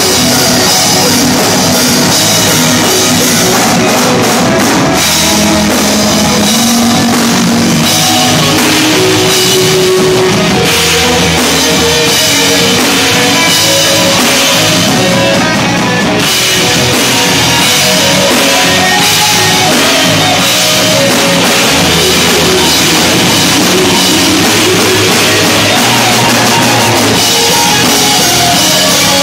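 A rock band playing live and loud: distorted electric guitars over a full drum kit.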